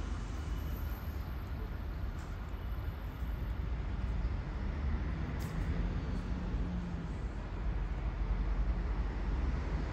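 Bulgarian State Railways passenger train pulling away from the platform, a steady low rumble as it heads off down the line.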